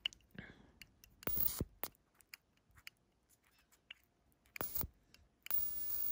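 Small metallic clicks and taps of a flip-top plasma arc lighter being handled and pressed against a firecracker fuse, then, about five and a half seconds in, a steady high hiss as the lighter's electric arc comes on at the fuse.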